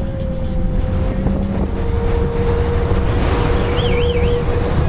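Steady engine and road rumble of a moving bus heard from inside, with a steady whine over it and a short, wavering high squeal about four seconds in.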